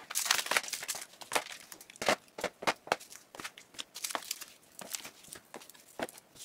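Packaged tools and blocks of polymer clay being put into a clear plastic storage box: an irregular run of plastic clicks, knocks and crinkling packaging, busiest in the first few seconds and sparser after.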